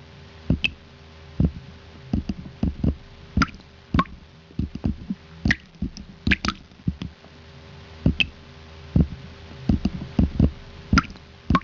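Water dripping: irregular drips and plops, about two or three a second, some with a short high ping, over a faint steady hum.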